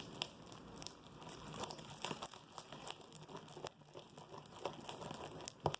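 Green slime being worked by hand, giving irregular small crackles and sticky clicks, with one sharper click just before the end.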